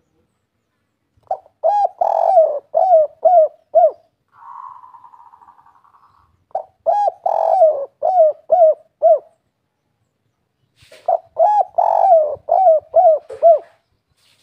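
Spotted dove (derkuku, tekukur) singing its 'kuk 3' song: three phrases of short, rising-and-falling coos, each lasting about two and a half seconds. Between the first and second phrase a fainter buzzing sound fades away.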